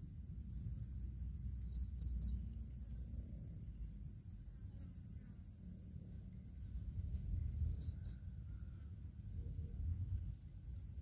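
Insects chirping in a rapid series of short high pulses, with a few louder chirps about two seconds in and again near eight seconds, over a steady high-pitched insect whine and a low rumble underneath.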